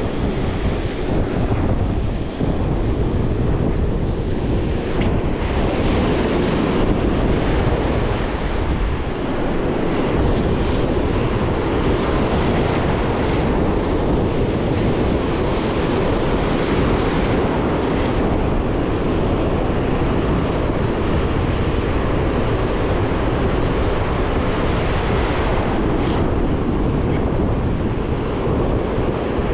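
Ocean surf breaking and washing up the beach, with wind blowing across the microphone: a steady, unbroken rush of noise with a heavy low rumble.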